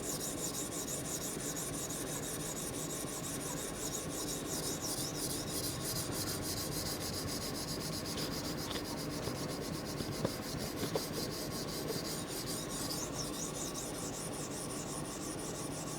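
Steel knife blade, a Microtech Combat Troodon tanto, being stroked back and forth over a sharpening stone: a steady, continuous rhythmic scraping as the edge and its tanto transition are worked and blended.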